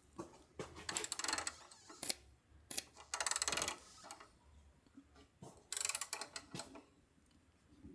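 Hand socket ratchet clicking in several short bursts of rapid pawl clicks, as a bolt is worked down by back-and-forth strokes until it is tight.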